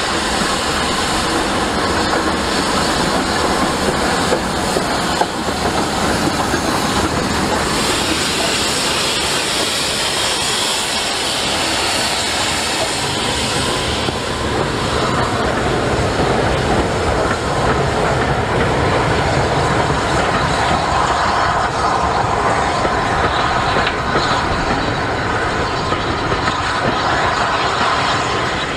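Double-headed steam train passing: Bulleid Pacifics 34028 'Eddystone' and Merchant Navy 35006 working a passenger train, then the coaches rolling by with the clickety-clack of wheels over the rail joints.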